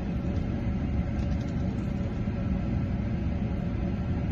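A steady low rumble with no clear events.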